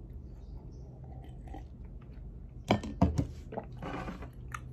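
Mouth sounds of a person drinking from a plastic cup and chewing chocolate candy, faint at first, with a cluster of sharp knocks and clicks about three seconds in.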